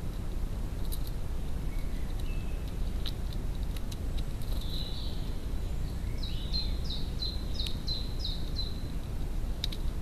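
A songbird calling a quick run of about eight sharp repeated notes, about three a second, over a steady low outdoor rumble. A few sharp clicks come in between, the last as the great spotted woodpecker's bill goes down into the seed.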